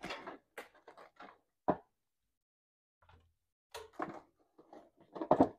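Knocks, taps and light clatter of seed packets and dividers being handled in a storage box on a metal wire shelf. One sharp knock comes a little under two seconds in, and a louder cluster of knocks comes near the end.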